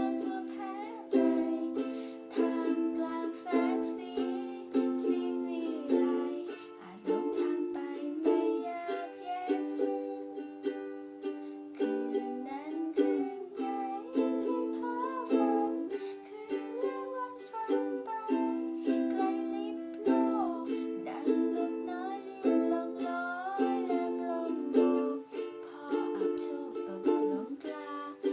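A strummed string instrument playing a song's chords in a steady rhythm, with a fresh strum about every second.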